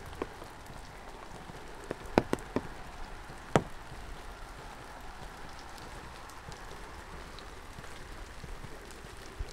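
Steady rain falling, with a few sharp drip taps between about two and four seconds in.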